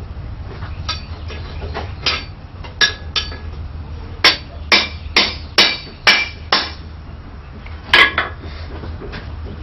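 Hand hammer striking a steel bar on an anvil to bend it, a dozen ringing metallic blows. Lighter taps come first, then a run of six hard blows about two a second, then one more hard blow. A steady low hum runs underneath.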